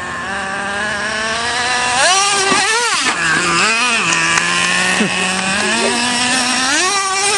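Traxxas Revo 3.3 RC monster truck's small two-stroke nitro engine running and revving as it drives, its high pitch swinging up and down, with quick rising and falling sweeps about two to four seconds in and another rise near the end.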